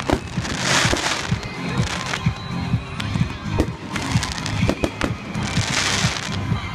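Fireworks display: a run of sharp bangs and pops from bursting shells, with two stretches of hissing crackle, about a second in and again near the end. Music plays underneath.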